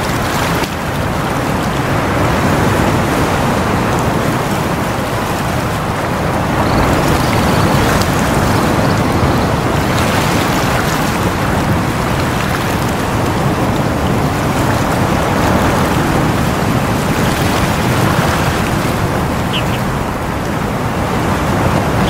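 Sea waves washing and breaking over rocks: a continuous rush of surf that swells and eases.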